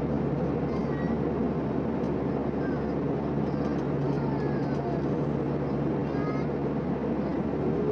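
Steady cabin noise of an Airbus A320-family jet airliner in flight at altitude, heard from a window seat by the wing: an even rush of engine and airflow noise with a steady low hum underneath.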